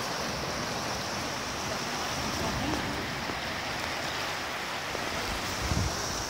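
River in flood, fast brown water rushing and churning past a bridge pier in a steady rush, with a brief low bump near the end.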